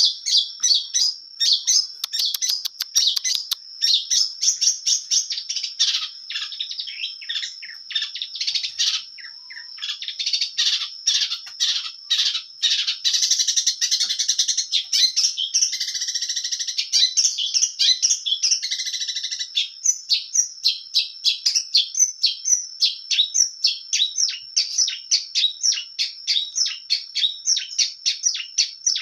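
Long-tailed shrike (cendet) singing a long, varied song of rapid high chirps, trills and warbles, full of calls mimicked from other birds. From about two-thirds of the way in it settles into a quick, even run of short chirps.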